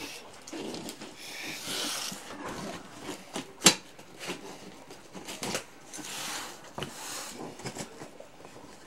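Handling noise: scattered light knocks and clicks with stretches of rustling, and one sharp click about three and a half seconds in.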